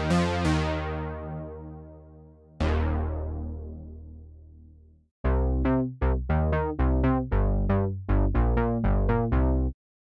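TAL-U-NO-LX software synthesizer, an emulation of the Roland Juno-60, playing bass presets. First come two long bass notes that die away slowly. From about five seconds in comes a quick run of short bass notes, about four a second, which stops just before the end.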